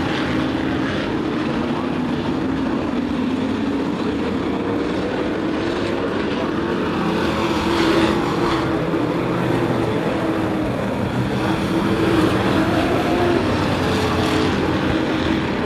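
Race truck engines of a pack of sport trucks running at speed around an oval track, a steady blended engine sound with pitch drifting up and down as the trucks pass.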